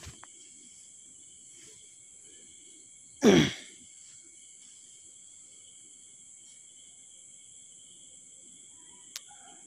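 A person's short voiced sigh, falling in pitch, about three seconds in, over a quiet background with a steady high-pitched whine. A faint click near the end.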